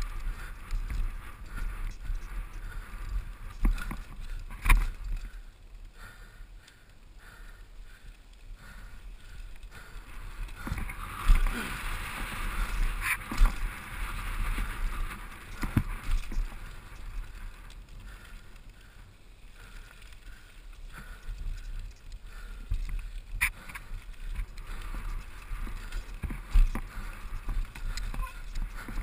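Mountain bike riding fast down a dirt singletrack, heard from a helmet camera: steady rumble of tyres on dirt and wind buffeting the microphone. Sharp knocks and rattles come from the bike over bumps, with a louder stretch of hiss a little before the middle.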